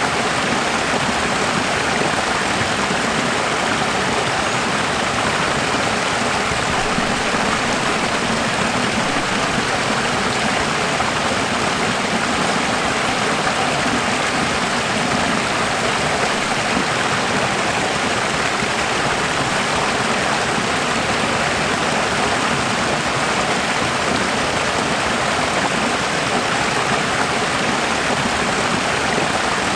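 Running water: a steady, even rush of a flowing stream.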